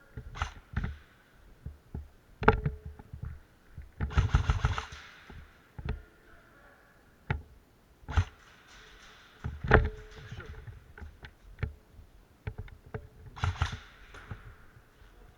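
Airsoft guns firing: scattered single shots, with a rapid burst of about a second around four seconds in and another cluster near the end.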